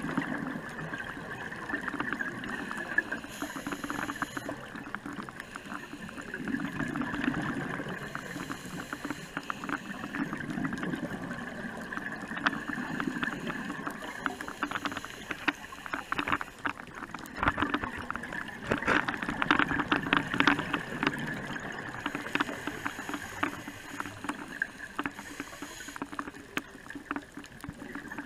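Underwater sound of a scuba diver breathing through a regulator, heard through the camera housing: slow, repeating swells of breath, with bursts of bubbling and crackling from the exhaled bubbles, thickest about two-thirds of the way through.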